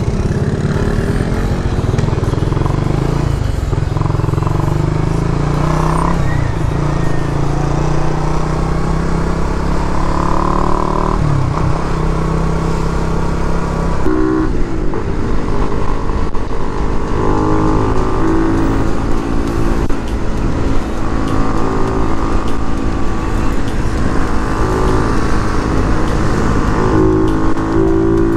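Suzuki Raider R150 Fi's single-cylinder engine running under way, breathing through an open mushroom-type air filter fitted in place of the stock airbox, which adds intake noise. The note is low over the first half. After a sudden change about halfway, it is higher and shifts pitch in steps as the bike runs at road speed.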